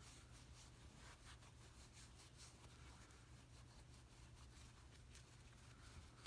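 Faint, irregular scratchy rubbing of a jeweler's polishing cloth worked by hand over a silver wire-wrapped piece, over a low steady hum.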